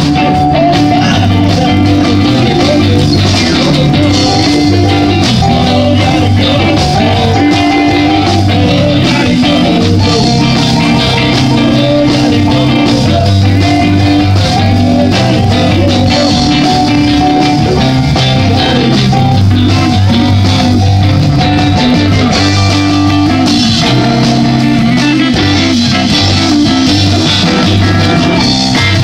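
Live band playing a blues-rock number through the stage PA, guitars over a steady bass line.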